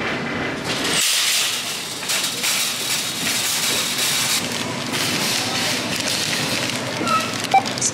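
Plastic packaging crinkling and rustling as items are handled at a self-checkout, a dense crackle that sets in abruptly about a second in.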